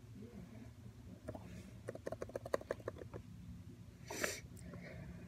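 Computer keyboard typing: a fast, even run of key taps, about eight a second, lasting just over a second in the middle. A short breathy rush of noise follows about a second later.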